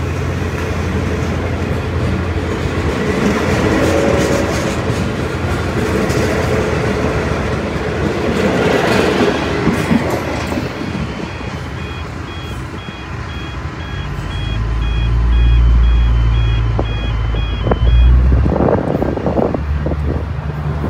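Passenger carriages of a departing diesel-hauled train rolling past on the rails and pulling away. From about halfway through, a level crossing's warning bells ring in a fast repeating two-tone pattern, then stop a few seconds before the end. Near the end comes a deep low rumble and a few knocks.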